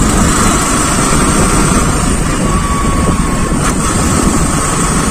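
Small motorcycle riding along a road: the engine runs steadily under a heavy rush of wind on the microphone.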